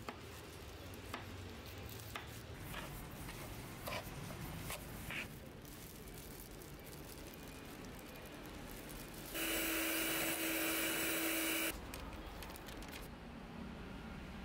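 Quiet kitchen food-prep sounds: a knife tapping and cutting pineapple on a wooden cutting board, a few sharp clicks in the first five seconds. About nine seconds in, a louder steady whirring noise runs for about two seconds, then stops.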